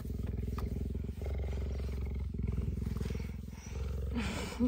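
Cheetah purring up close, a steady, continuous low rumble. Near the end a brief wavering vocal sound rises over it.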